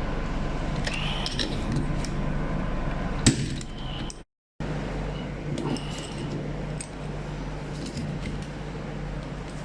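Small metallic clicks and clinks of hand tools working on car trim and fittings over a steady hum, with a sharp click a little past three seconds in and a brief gap of silence just after four seconds.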